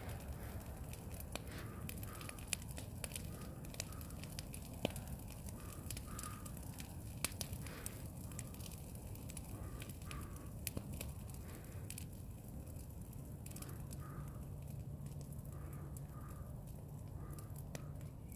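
Burning brush pile crackling, with sharp pops and snaps scattered through it over a low steady rumble. Faint short animal calls repeat in the background.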